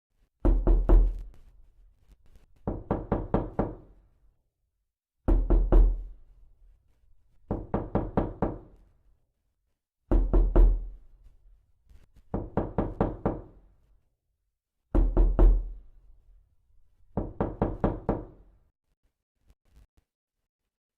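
Knocking in bursts of several quick knocks, about two and a half seconds apart, repeating eight times as a loop.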